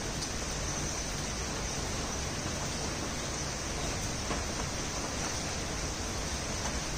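Steady rain falling: an even hiss with a few faint ticks.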